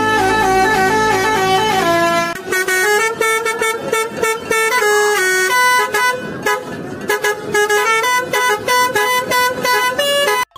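Basuri telolet multi-tone bus horn playing a quick melody, several pitched tones stepping up and down one after another, stopping suddenly near the end.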